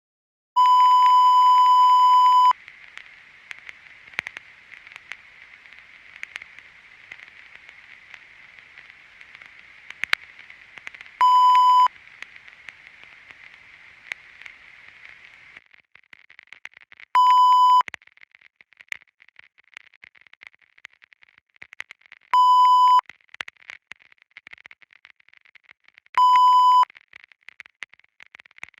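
An electronic beep tone over crackling static: one long beep of about two seconds, then four short beeps spaced several seconds apart. The static hiss thins out about halfway through, leaving scattered crackles.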